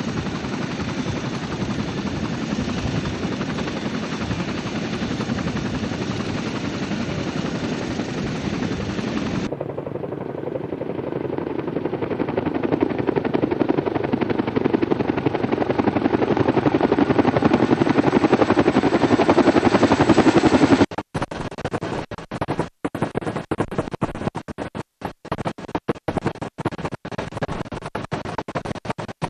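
Chinook tandem-rotor helicopter running close by, a dense rotor and turbine noise. Then comes a different helicopter sound that grows louder as a Chinook passes low overhead. About 21 seconds in it cuts abruptly to music with record scratching and stuttering cuts.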